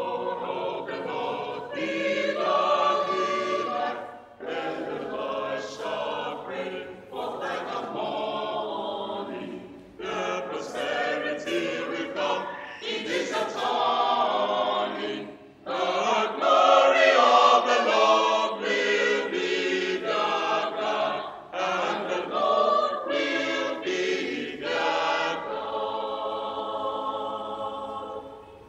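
Mixed choir of men's and women's voices singing, phrase after phrase with short breaks between them; it swells loudest about halfway through and sings more softly near the end.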